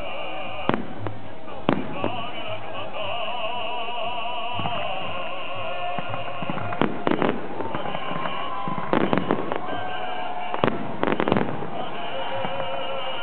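Aerial firework shells bursting with sharp bangs, one at a time early on and in quick clusters of two or three later, over continuous music with a wavering singing voice.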